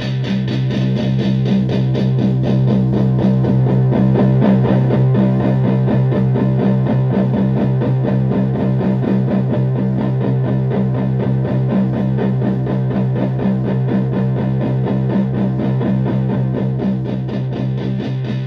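Electric guitar through a modified Violet Ram's Head Big Muff fuzz pedal, playing thick distorted low notes with fast, even picking. It is set to demonstrate the pedal's tone and scoop controls. The sound swells over the first few seconds and eases slightly near the end.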